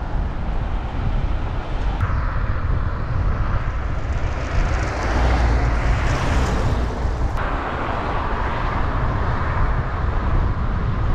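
Wind rumbling on the microphone of a cyclist's camera while riding at speed, with a steady hiss of movement; the noise changes tone abruptly twice, about two seconds in and a little past halfway.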